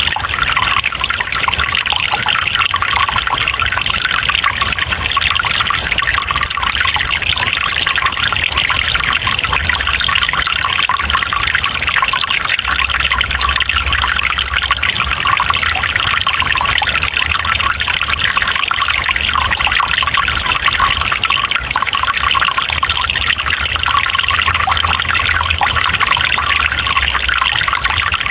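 Running water trickling steadily and evenly, with no breaks or changes.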